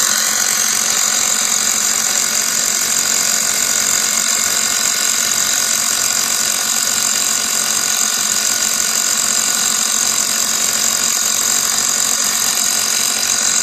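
Small 12-volt portable air compressor running steadily, pumping up a riding lawn mower's rear tire. It is a noisy, even hum with a high whine on top.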